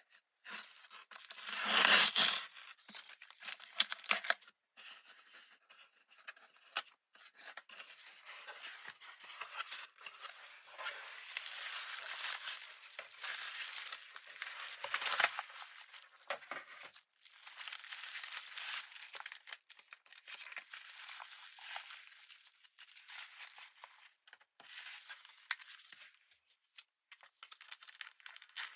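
Packaging being unwrapped by hand: crinkling and tearing in irregular bursts with a few sharp clicks, loudest about two seconds in.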